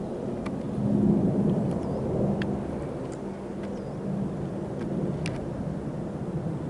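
Low, steady rumble of a Boeing 737-800's twin CFM56-7B turbofans at cruise, heard from the ground far below the aircraft, swelling slightly about a second in.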